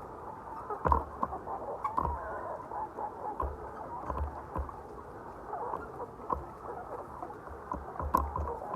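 A large flock of laying hens chattering and clucking all at once, with scattered clicks and low knocks.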